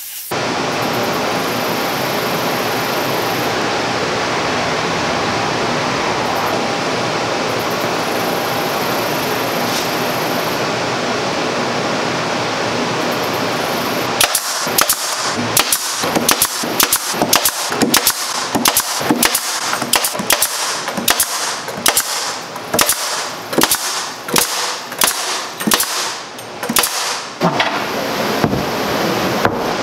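Steady rushing noise throughout; about halfway through, a pneumatic brad nailer starts firing brads into plywood in a quick run of sharp shots, about two a second, for some fourteen seconds.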